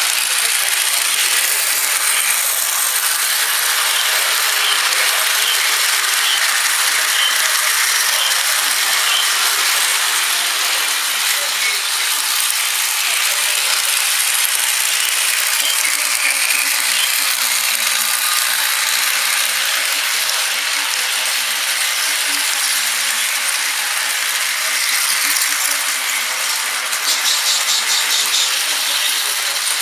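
Lionel 2026 toy steam locomotive running around its track: a steady whirring rattle of its motor, gears and wheels on the rails. Near the end there is a short run of rapid, even clicks.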